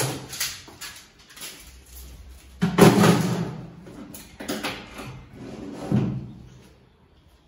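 Knocks and thuds of wooden and MDF cabinet parts being handled and set down, with a loud knock about three seconds in and a few lighter ones after it.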